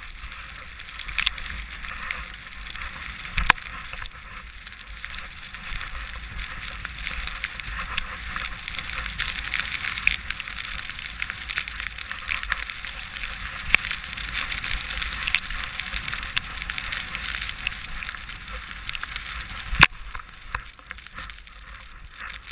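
Skis sliding through deep powder snow, a steady hiss, with a few sharp knocks, the loudest about three and a half and twenty seconds in.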